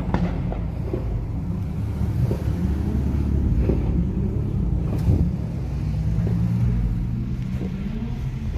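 Car engines running at low revs, a steady low rumble as the cars roll slowly past.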